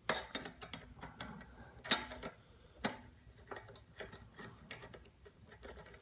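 Nut driver unscrewing a bolt from a Briggs & Stratton lawn mower engine's sheet-metal housing: irregular small metallic clicks and scrapes, with two sharper clicks about two and three seconds in.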